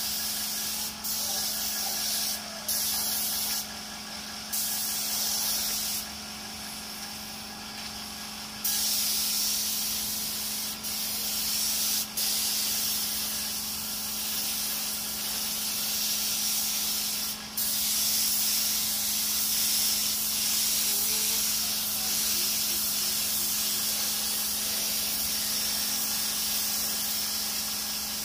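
Air spray gun hissing as it sprays clear coat onto a motorcycle frame, with the trigger let go briefly several times and for a longer pause about six to nine seconds in. A steady low hum runs underneath.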